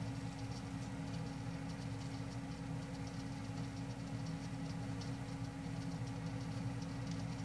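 Steady low machine hum with faint, irregular high ticking over it.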